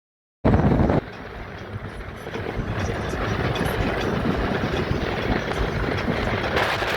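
Steady road and engine noise of a moving vehicle, heard from inside while riding. It cuts in abruptly about half a second in with a brief loud rush, then settles and slowly grows louder.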